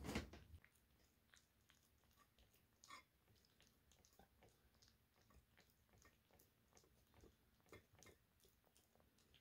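Faint chewing of a kitten eating food from a stainless steel bowl: small, irregular clicks.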